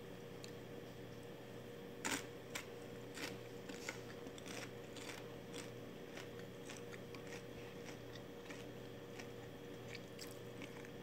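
A person chewing crunchy snack food close to the microphone: irregular soft crunches and clicks, the loudest about two seconds in, over a steady low hum.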